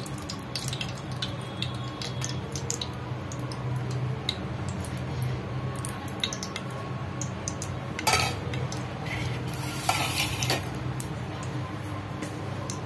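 Cooking oil poured in a thin stream into a hot aluminium pressure cooker, with many small ticks and crackles over a steady low hum. Two louder clattering noises come about eight and ten seconds in.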